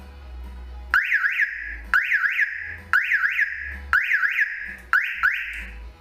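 Omega Cobra car alarm siren sounding its sensor warning. It gives five short bursts about a second apart, each a quick rising-and-falling chirp that settles into a held high tone. The warning signals that the shock sensor was touched while the alarm is armed.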